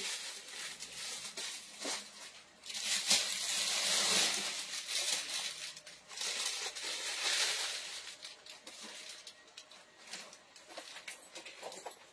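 Rustling and crinkling of packaging being handled, mostly from about three seconds in to about eight, with a brief lull in the middle, and a few light knocks around it.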